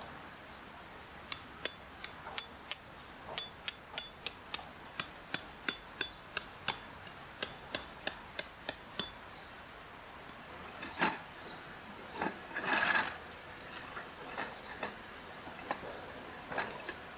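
Hammer tapping tent pegs in gravel ground: a quickening run of sharp, slightly ringing taps, about two a second, for most of the first half. A louder scraping noise follows about two-thirds of the way in, with a few scattered taps after it.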